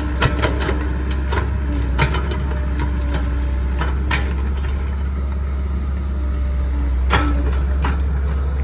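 CAT hydraulic excavator's diesel engine running with a steady low rumble as the machine digs and swings mud, with sharp knocks several times from the bucket and arm working.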